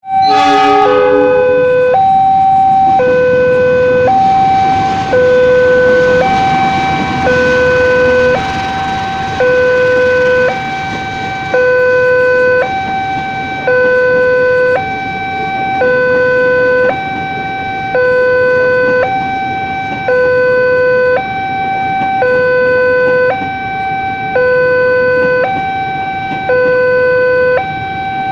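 Railway level-crossing warning siren sounding a loud two-tone hi-lo alarm, a higher and a lower tone alternating about once a second each in an even repeating cycle. It cuts in suddenly at the start.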